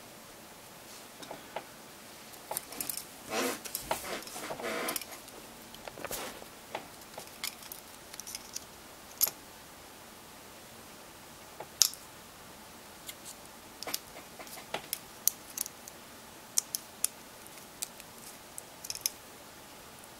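Small smartphone parts and tools being handled on a work surface: scattered sharp clicks and light taps, with about three seconds of denser rustling handling noise about two seconds in.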